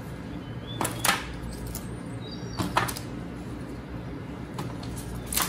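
Scattered light taps and clicks of thin raw potato slices being set down on a parchment-lined baking tray, about half a dozen in all, over a faint steady hum.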